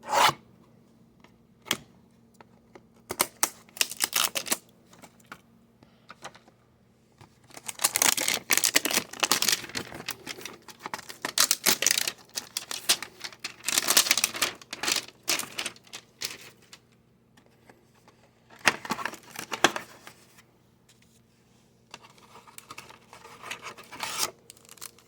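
Packaging of a trading-card hanger box being torn open and crinkled, in several crackly bursts with short pauses between.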